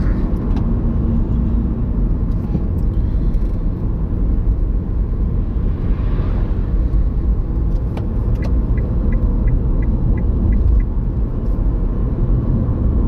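Steady road and engine noise heard from inside a car cruising at about 50 mph, a constant low rumble. About two-thirds of the way through comes a short run of faint, quick, high pips, about three a second.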